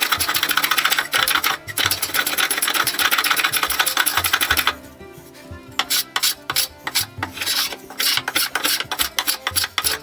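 A hand tool scraping and shaving wood as a wooden leg-vise chop is worked down to size. Strokes run together for about four and a half seconds, stop briefly, then come as separate strokes about two or three a second.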